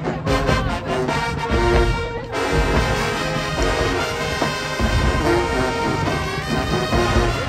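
Marching band playing, brass over a heavy drum beat, with a brief break about two seconds in.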